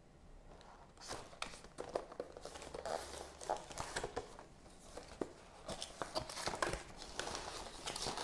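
Cardboard product box being handled and opened: the inner box slid out of its printed sleeve and its lid lifted, with short scrapes, taps and rustling of the packaging starting about a second in.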